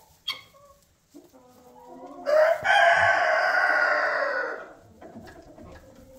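A rooster crowing once, a single long call of about two and a half seconds that rises quickly, then holds and tails off. Softer calls from the flock come before and after it.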